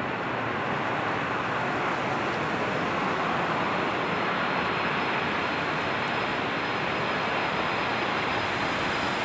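Boeing 747's four jet engines running with a steady rushing noise as the jet rolls out on the runway after landing, with a faint high whine joining a few seconds in.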